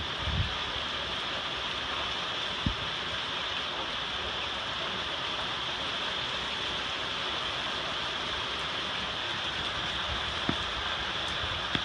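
Steady rain hissing, with a few short, soft low thumps.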